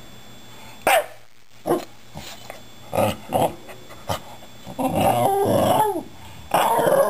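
A Shiba Inu 'talking' to a cat: a few short vocal sounds, then two longer drawn-out ones with the pitch bending up and down, about five and six and a half seconds in.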